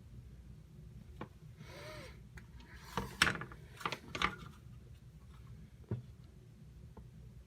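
Tools and a circuit board being handled on a workbench: a brief scraping rub about two seconds in, then a run of sharp clicks and knocks, the loudest about three seconds in, over a low steady hum.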